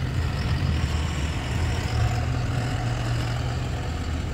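Heavy diesel tipper truck engine running steadily with a deep, low hum as the truck moves over dirt.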